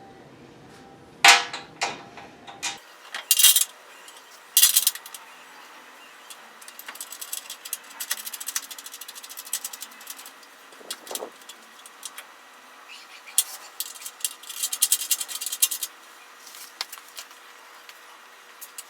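Metal tools and bolts clinking and rattling while a chrome bumper is bolted onto a pickup, with a few sharp clanks in the first seconds and runs of rapid clicking later on.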